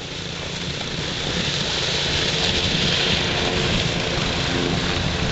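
Quad ATV engine running steadily as it drives across snow-covered lake ice, with a steady rushing hiss over it. It grows louder over the first couple of seconds.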